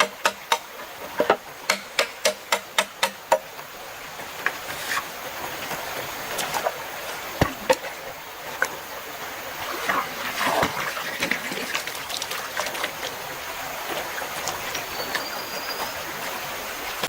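A quick run of sharp woody knocks, about three a second, that stops a little over three seconds in, giving way to the steady rush of a stream with some rustling around the middle.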